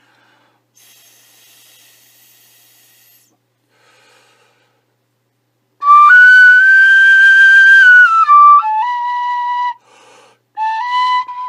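Untweaked Clarke Original tin whistle playing a tune. Starting about six seconds in, a long high note is held for about two seconds, then the tune steps down through lower notes, breaks off briefly and goes on. Out of the box this whistle takes so much air that the player cannot get through the passage at the top.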